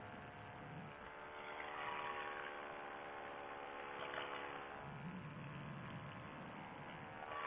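Paramotor engine running steadily in flight, a constant buzzing drone, with wind rush on the microphone swelling a few times.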